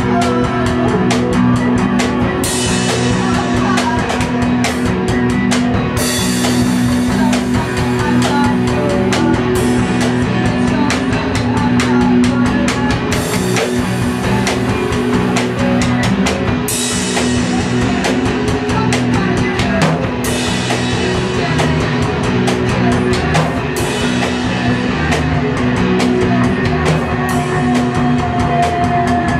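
Live improvised rock band playing loud: a drum kit beaten busily, with cymbal crashes every few seconds, over sustained, droning guitar tones.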